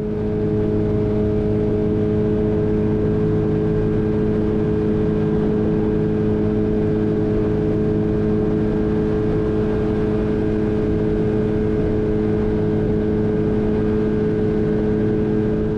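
Boat's outboard motor running at a steady speed under way, a constant engine tone over a rushing hiss of wind and water.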